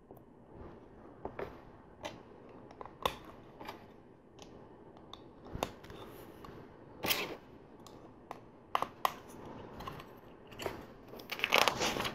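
Small plastic LEGO pieces being handled and pressed together: a scatter of sharp clicks and taps, some a second or more apart, growing into denser handling noise near the end.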